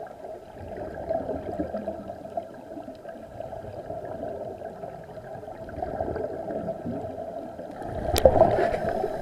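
Underwater sound of scuba divers breathing through their regulators: exhaled bubbles gurgling over a steady hum, swelling louder near the end with a sharp click.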